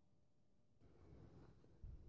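Near silence: room tone. Faint low rustle starts just under a second in, with a soft bump near the end.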